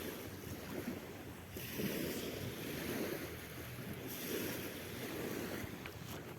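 Sea waves washing onto the shore, a soft surf that swells and eases every second or two.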